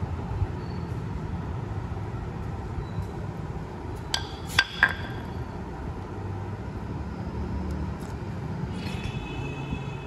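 A few sharp metallic clinks about halfway through, as the motorcycle's metal cylinder-head cover is set down on a concrete floor, over a steady low background rumble.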